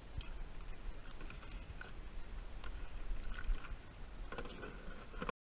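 Light clicks and knocks of a plastic cooler lid and a crab net being handled as a crab goes into the cooler, over a low rumble of wind on the microphone. The sound cuts off suddenly near the end.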